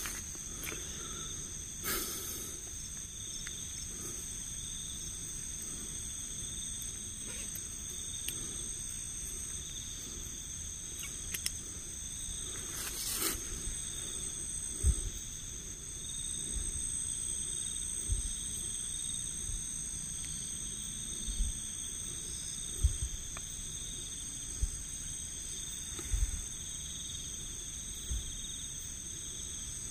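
Night insects trilling steadily at several high pitches, with a few brief clicks and scattered low thumps of movement in the undergrowth.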